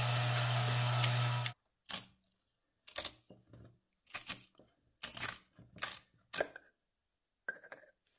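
Cordless screwdriver running steadily, spinning the brass oil can with sand inside to scour out lime, then cutting off about a second and a half in. After that come about eight short metal clicks and scrapes as the brass pump assembly is unscrewed and lifted out of the can's neck.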